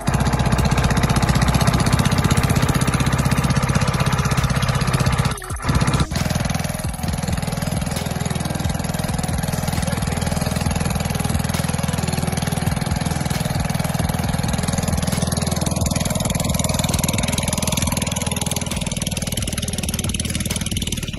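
Boat engine running steadily under way, a low even drone with the sound dropping out briefly twice about five to six seconds in.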